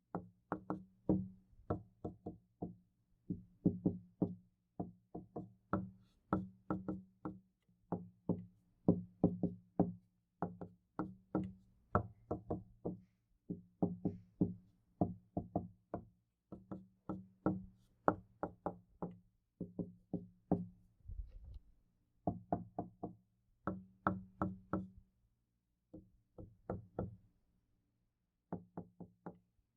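Knocking on a door: quick runs of several raps each, separated by short pauses, with a longer pause near the end. It is recorded in 3D binaural sound.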